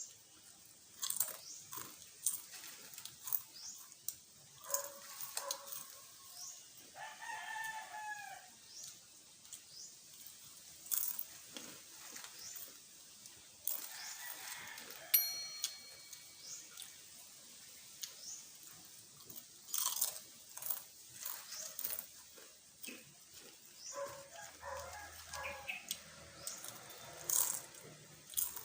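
Chips being bitten and chewed close to the microphone, as short crunches every second or so. A rooster crows in the background about seven seconds in.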